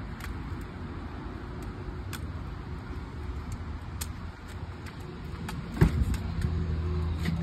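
Aluminium crutches tapping on parking-lot pavement over a steady low vehicle rumble. Near the end a car door latch clunks sharply as the door is pulled open, and a steady low hum is louder after it.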